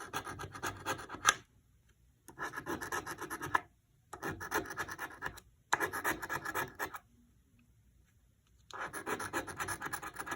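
Scratch-off lottery ticket being scratched, the coating scraped away in five bursts of quick back-and-forth strokes, each lasting about a second, with short pauses in between.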